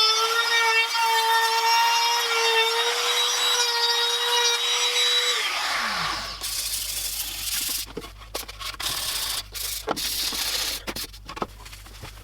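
A small power tool runs with a steady whine while rubbing or sanding a workpiece. It is switched off about five and a half seconds in and its pitch falls quickly as it winds down. Scattered knocks and clicks of the parts being handled follow.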